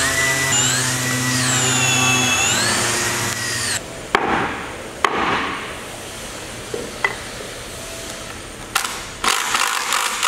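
Cordless drill boring into yellow cedar bulwark timber, its whine rising and falling in pitch as the trigger and the load change, stopping about four seconds in. Then a few separate hammer knocks on the wood, with a quick cluster of them near the end.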